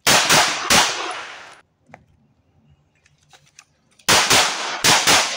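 Pistol shots at close range: three quick shots, then after a pause of about three seconds a string of four more. Each shot is followed by a fading echo.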